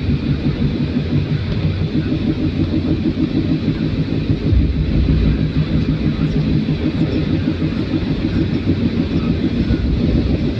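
Steady low rumble of a vehicle driving on a highway, with road and engine noise; the deepest part of the rumble grows stronger about halfway through.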